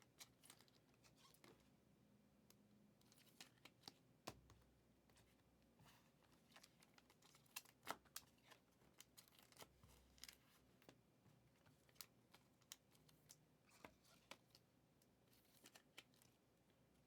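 Faint handling of trading-card packs and cards: scattered light clicks and soft rustling and tearing of foil wrappers, with a couple of sharper clicks about eight and ten seconds in.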